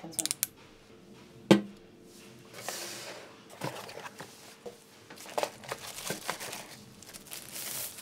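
Unboxing sounds: cardboard and plastic packaging rustling and crinkling, with short tearing of a sticker or film. One sharp knock about one and a half seconds in is the loudest sound.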